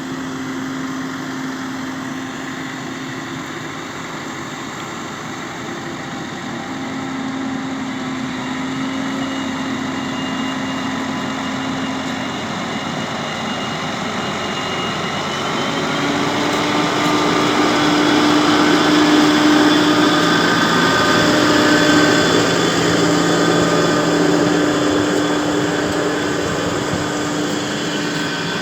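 New Holland T6 tractor engine running steadily, its note shifting a little in pitch and growing louder about halfway through before easing off near the end.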